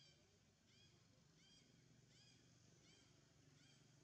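Faint short high animal calls repeating evenly, about every three-quarters of a second, over a low steady hum.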